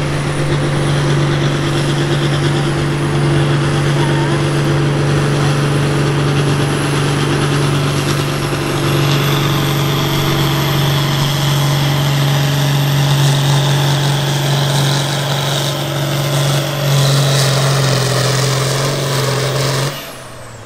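Diesel farm tractor engine running hard under load in a tractor pull, steady, with a thin high whistle that rises slowly. Near the end the engine drops back sharply to a much quieter, lower note.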